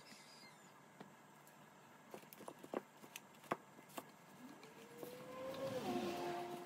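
Faint scattered clicks and taps of kitchen handling, then a faint swelling sound from about five seconds in with a tone that rises, holds, and drops to a lower held note.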